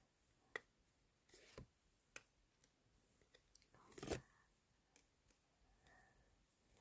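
Faint handling of trading cards and their foil pack: scattered soft clicks and short rustles, the loudest rustle about four seconds in.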